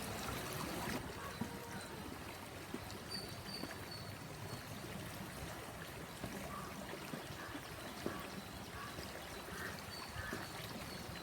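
Steady rush of flowing water, like a stream, with a few faint high chirps about three seconds in and again near the end.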